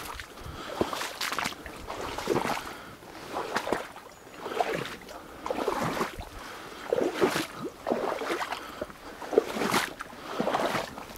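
A person wading through shallow marsh water and reeds, a splash and swish of stems with each stride, about one a second.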